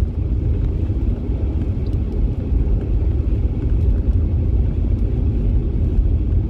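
Car driving at about 80 km/h, heard from inside: a steady low rumble of road and engine noise.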